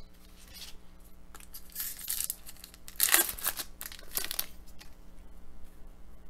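A hockey card pack's wrapper being torn open and crinkled, in a run of short rips, the loudest about three seconds in.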